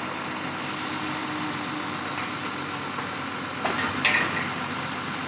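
A diesel engine idling steadily, with a few sharp clinks a little past the middle.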